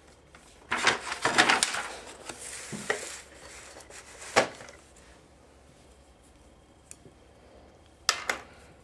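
Handling noise: about two seconds of clattering clicks and rustling, a single sharp click about four seconds in, and another sharp click near the end as the metal knitting needles and the knitted work are picked up.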